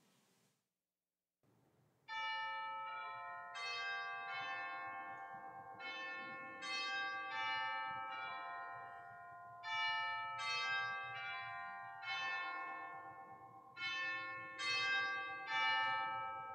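Bells chiming: after about two seconds of silence, ringing strikes at several pitches come in clusters about every four seconds, each ring carrying on under the next.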